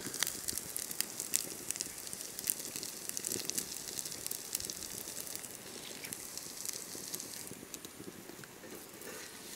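Wood fire crackling under the cooking pans, with irregular small snaps and ticks over a steady hiss.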